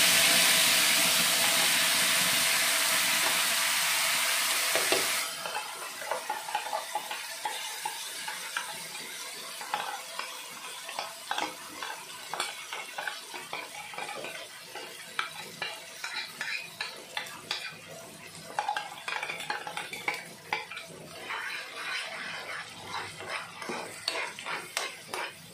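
Wet ground onion-tomato paste hitting hot oil in a kadai: a loud sizzle that drops off suddenly about five seconds in. It gives way to a quieter sizzle with a spoon scraping and clicking against the pan as the paste is stirred.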